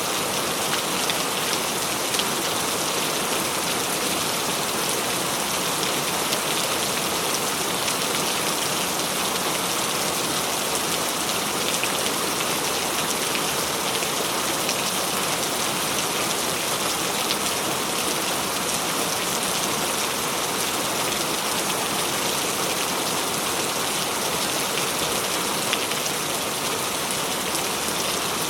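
Steady heavy rain: a dense, even hiss of drops falling on a surface, with no thunder.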